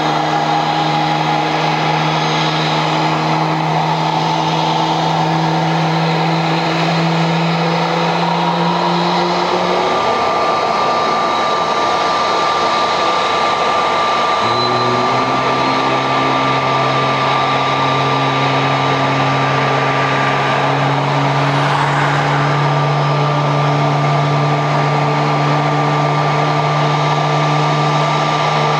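Airbus A320-family airliner's jet engines running at ground idle after pushback: a loud, steady hum and whine. The pitch shifts about halfway through, when one tone fades out and a lower one comes in with a short rise.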